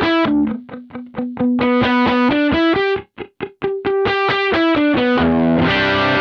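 Electric guitar played through a Kemper Profiler with its compressor stomp set heavy, at intensity 5. It plays fast picked single-note lines, about six notes a second, each note held at an even level. About five seconds in it moves to a fuller strummed chord.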